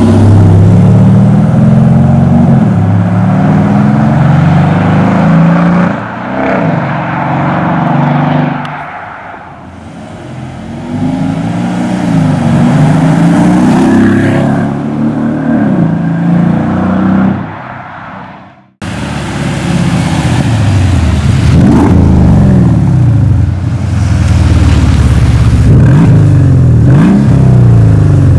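Mercedes-Benz SL 500 (R231) twin-turbo V8 through a mariani stage-1 sport exhaust, revved again and again while driving, the note climbing and falling. It fades down around ten seconds in and comes back, cuts off suddenly a little past halfway, then resumes with more revving.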